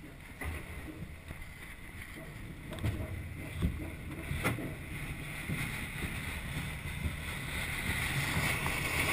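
Glider rolling down a runway on tow: a low rumble and rattle from the wheel and airframe with a few sharp knocks, and a rush of air that grows louder as it picks up speed.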